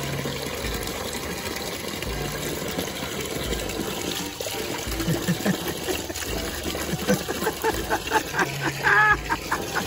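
Water from an outdoor spigot pouring steadily into a plastic bucket. In the second half a puppy snaps and laps at the falling stream, adding irregular splashes and slurps.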